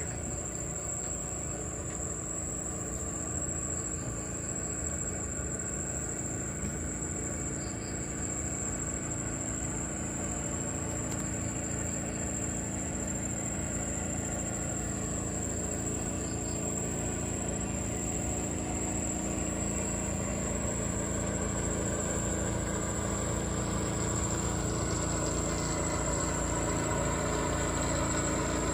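Steady high-pitched insect drone, with the hum of a motor engine underneath that grows louder toward the end.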